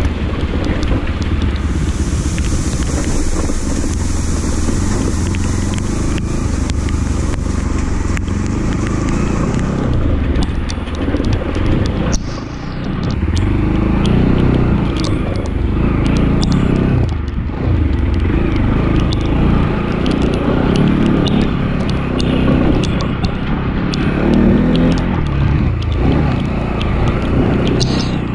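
Motorcycle engine running at low speed over a rough, rocky dirt trail. From about halfway through, frequent sharp clicks and knocks are heard as the bike jolts over stones and ruts.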